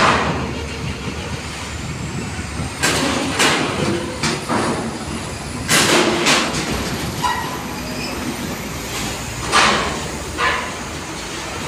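Loaded diesel trucks driving off a ferry onto the steel loading ramp: a steady engine and traffic rumble, with a series of loud metallic clanks and bangs as the trucks roll over the steel ramp plates.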